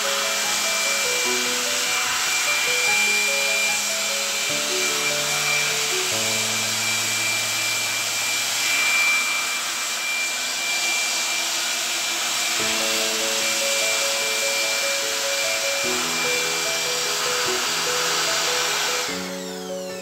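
Steady hissing machine noise with a thin high whine, from a motor-driven cleaning tool used on a split air-conditioner's indoor unit; it stops about a second before the end. Background music with sustained piano-like notes plays throughout.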